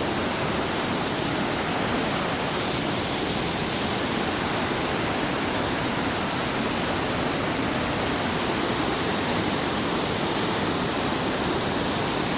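Rain-swollen canal water rushing past fast, a steady, even noise.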